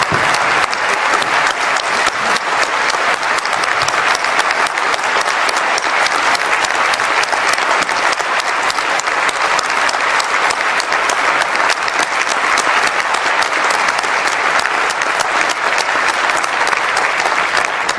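A large audience applauding steadily, many hands clapping together in a big hall.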